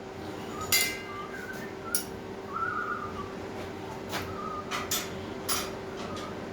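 Light metal clinks, about five of them, as small steel pieces are handled, with a few short whistled notes between them and a steady hum underneath.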